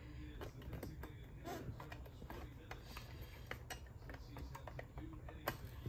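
Small, irregular plastic clicks and taps from a Playmates Cricket doll's cassette door as it is worked against the hinge prongs of its tape compartment, over a low steady hum.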